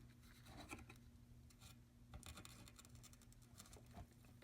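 Near silence: a steady low hum with faint, scattered ticks and scratches.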